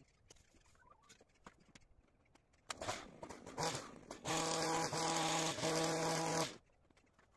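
Two-stroke petrol hedge trimmer revving as it trims the top of a hedge: uneven blips of throttle from about three seconds in, then a high steady buzz at full throttle for about two seconds that cuts off sharply.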